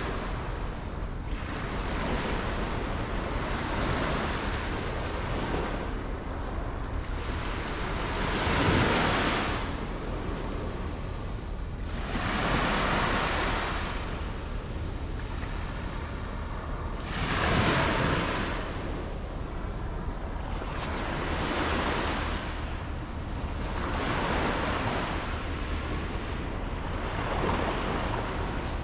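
Sea waves breaking and washing up on the shore, a fresh swell of surf about every four seconds, over a steady low rumble of wind on the microphone.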